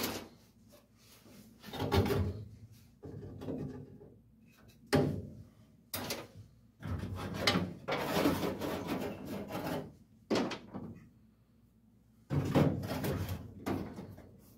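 Irregular scraping and rubbing strokes broken by sharp knocks, the sound of hands-on work with tools and parts in a garage shop.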